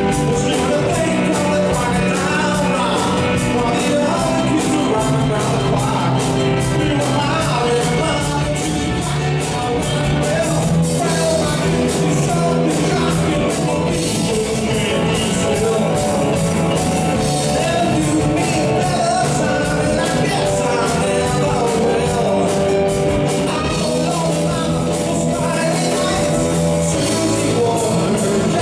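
Live rock band playing: drums with a fast, steady cymbal beat, bass guitar, electric guitar, piano and keyboards, loud and continuous.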